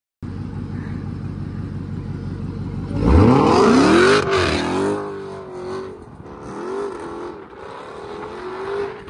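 Hellcat-engined Chrysler 300's supercharged V8 idling with a low rumble, then about three seconds in launching hard, spinning its rear tyres. The revs climb steeply, and the car pulls away through several upshifts, the sound fading as it goes.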